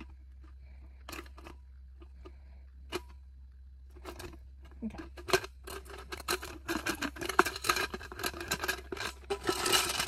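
Clicks and knocks of a Cirkul tumbler's plastic lid being handled and twisted, a few at first and then a busy run of clicks and rattles, with a louder rustle near the end.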